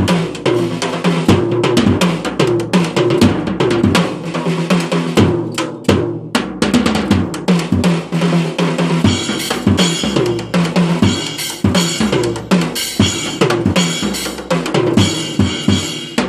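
A drum kit played in fast, busy fills, with rapid strikes across the snare, toms and bass drum. Cymbals join in about halfway through.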